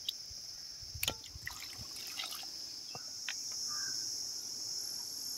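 Steady, high-pitched insect chorus. A few light clicks and knocks fall in the first three seconds, the loudest about a second in.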